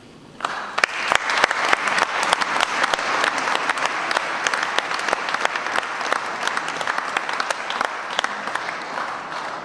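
Audience applauding a choir, dense clapping that breaks out suddenly about half a second in and eases off slightly near the end.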